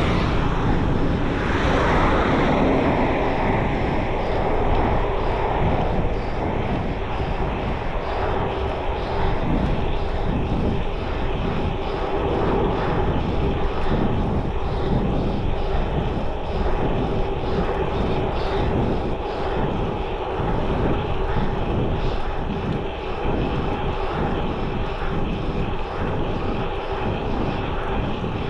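Steady wind rumble on the microphone with road noise from a touring bicycle being ridden.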